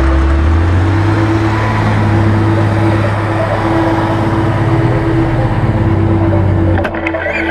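Diesel engine of a Deutz Agrostar 6.31 tractor running steadily under load, loud and close as it pulls a four-furrow plough past. The sound drops off a little near the end.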